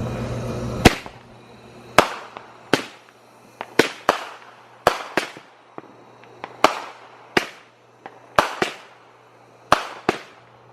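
Consumer firework cake firing shot after shot: about fifteen sharp bangs, one or two a second, each with a short fading echo.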